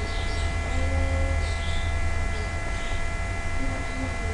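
Steady low electrical mains hum with a thin, constant high-pitched whine over it, the background noise of the microphone setup, with a few faint scattered sounds underneath.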